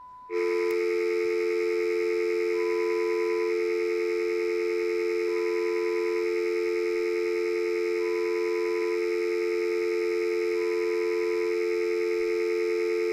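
Electronic stand-by tone over a 'Please stand by' colour-bar card: a steady low two-note tone like a telephone dial tone, with a short higher beep about every two and a half seconds. It blanks out a stretch where someone swore.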